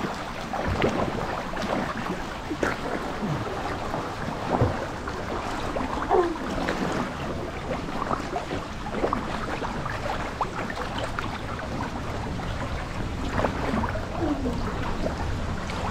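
Water lapping and splashing around swimmers moving through a narrow rock gorge pool, a steady watery wash with small splashes throughout.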